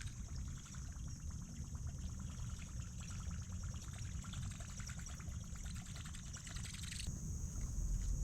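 Water pouring and trickling with a crackling splash, over a low rumble; the splashing stops about seven seconds in.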